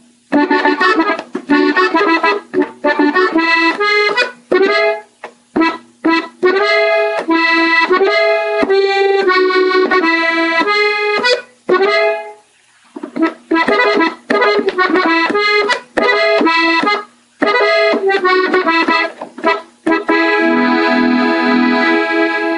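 Gabbanelli button accordion played slowly, melody phrases picked out on the treble buttons with short gaps between them and a brief pause about halfway through. It ends on a held chord with bass notes underneath.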